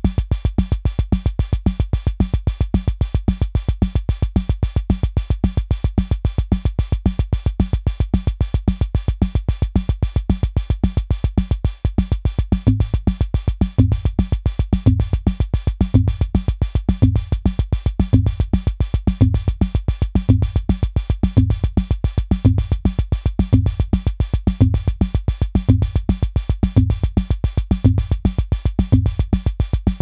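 Modular synth drum voices triggered by an Arduino gate sequencer, playing a fast, repeating drum-machine pattern: a dense run of rapid ticks with a pitched drum hit about twice a second. A little under halfway through, the pattern changes and a deeper, heavier drum hit joins about once a second.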